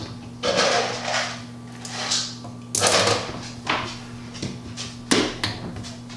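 Handling noise of brewing-system parts being fitted together: a few irregular clunks and scrapes, the sharpest knock about five seconds in.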